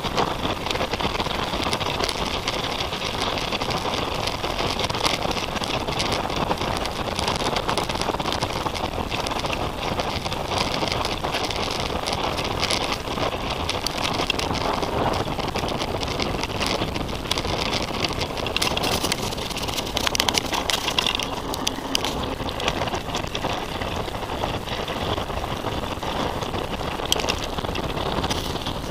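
Titus FTM full-suspension mountain bike riding fast over a dirt and grass forest track, heard through a camera mounted on the bike: a steady rumble of tyres on the ground with constant fine rattling and clicking from the bike.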